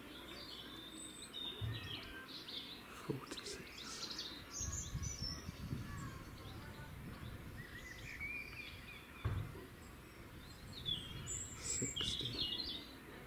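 Small birds chirping and singing in short calls and trills, with low rumbling now and then, strongest about four to six seconds in and again near nine seconds.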